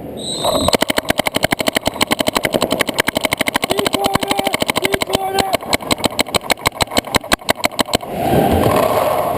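Paintball markers firing rapid strings of shots, about ten a second, typical of laning at the start of a point. A short high beep comes just before the shooting begins.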